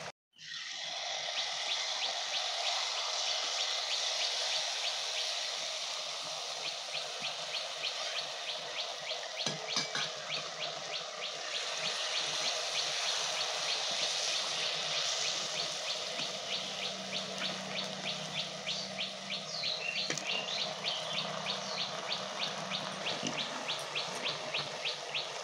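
Jalebi batter frying in a wok of very hot oil: a steady sizzle. A fast, regular high ticking, several a second, joins in about a quarter of the way through.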